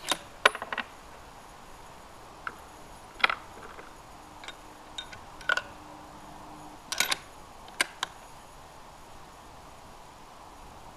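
Scattered sharp metallic clicks and clacks of a Savage Model 10 bolt-action rifle being handled between shots, the bolt worked and a fresh cartridge loaded. The loudest click comes near the start.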